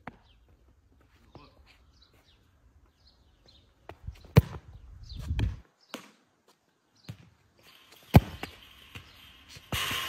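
Sharp thuds of a football being struck or bouncing on a concrete court, two loud hits about four seconds apart, over faint bird chirps. A steady hiss sets in near the end.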